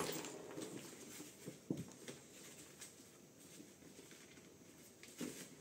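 Faint rustling of a fabric dry bag and webbing straps being handled, with a few soft clicks and knocks of buckles and fittings.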